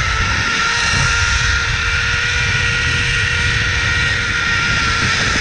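Zipline trolley pulleys running along the steel cable with a steady whine that sinks slightly in pitch as the ride goes on, over heavy wind rumble on the microphone from the speed of the ride.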